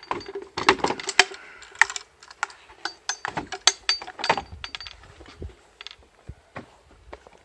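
Handling of a military field radio and its webbing: straps and canvas rustling, buckles and fittings clicking, and a few knocks as the radio set and its handset are put down on a wooden tabletop.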